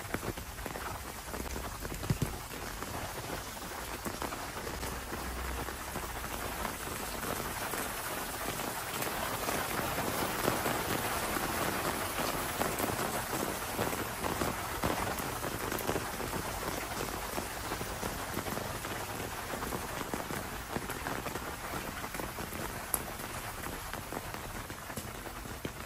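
Steady rain falling on wet stone paving, walls and foliage, growing louder midway and then easing off. A single short knock about two seconds in.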